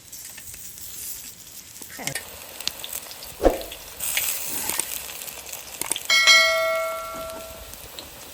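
Cooking over a fire: a steady sizzling hiss with scattered small clicks and a knock. About six seconds in, a metal object is struck and rings with a bell-like tone that fades over about a second and a half.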